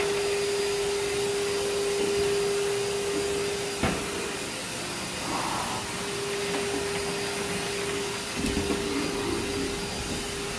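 DeWalt shop vacuum running as a blower from its rear port: a steady rush of air with a steady motor tone. A single knock comes about four seconds in. It is not the strongest blower, but it does blow.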